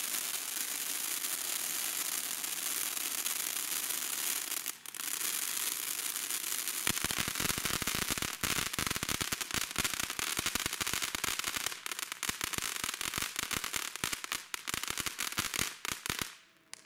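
Brothers Shining Saucer firework fountain spraying with a steady hiss, which briefly drops out about five seconds in. About seven seconds in, dense rapid crackling sets in and runs until the fountain stops abruptly near the end.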